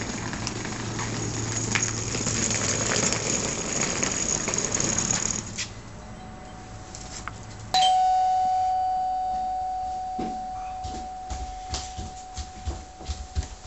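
A steady rush of noise, then about eight seconds in a doorbell chime rings once and fades slowly. Near the end, footsteps come down a staircase inside.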